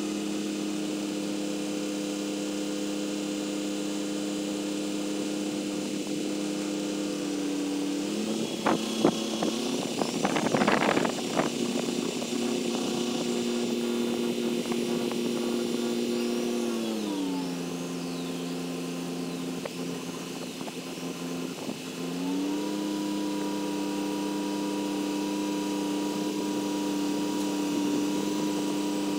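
A large crane's engine running steadily, its speed rising about eight seconds in, dropping back midway and rising again about twenty-two seconds in, as the crane works. A cluster of knocks and clatter comes around eight to eleven seconds in.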